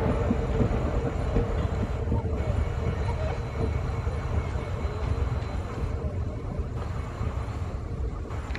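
Train rumbling during slow shunting moves: a steady low rumble with a few faint clicks, slowly growing quieter.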